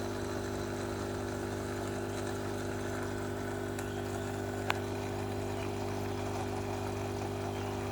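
Steady electric hum of aquarium equipment running, a motor drone holding several fixed low tones over a light hiss. A single short click a little past halfway.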